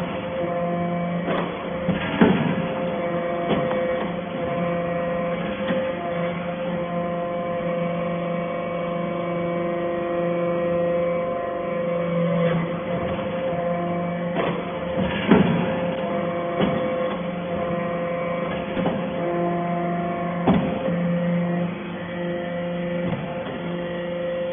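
Hydraulic metal-shaving baler (briquetting press) running: a steady hydraulic pump hum with several short sharp knocks, the loudest about 2, 15 and 20 seconds in.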